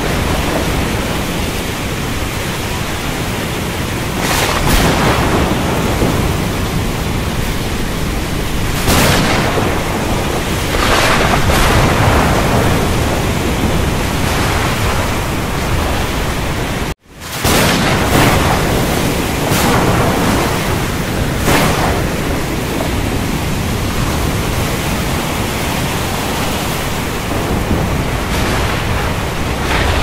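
Heavy rain hissing steadily under rolling thunder, with a deep rumble throughout and brief louder surges every few seconds. The sound cuts out for an instant just past the middle.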